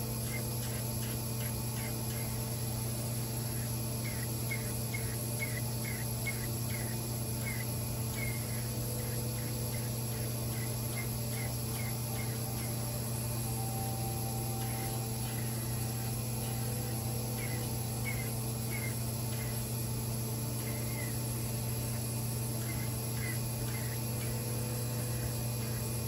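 Crystal microdermabrasion machine's vacuum pump running with a steady low hum. Short high chirps come and go in clusters over it.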